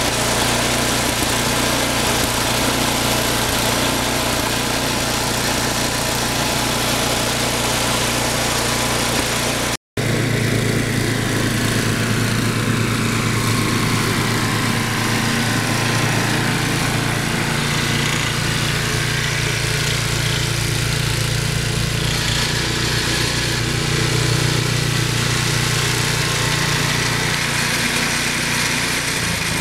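Snow blower's small engine running steadily while clearing snow. The sound breaks off for an instant about ten seconds in, then carries on unchanged.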